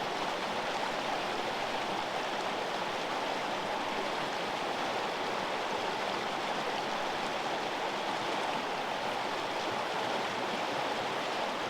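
A river flowing: a steady, even rush of running water.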